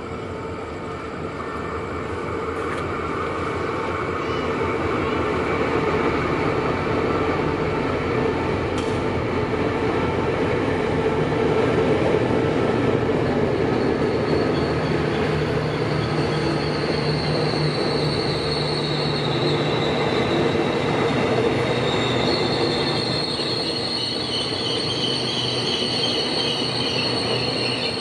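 Express train hauled by a CRRC diesel-electric locomotive rolling into the station, the engine and carriages growing louder over the first few seconds. A high-pitched squeal of the wheels and brakes sets in about halfway and strengthens near the end as the train slows.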